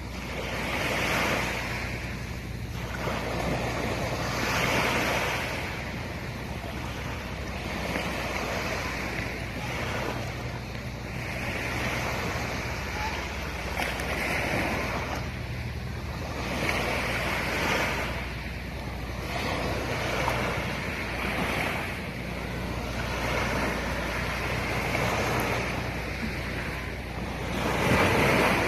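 Sea waves washing in repeated surges about every one and a half to two seconds, the loudest near the end, over a steady low hum.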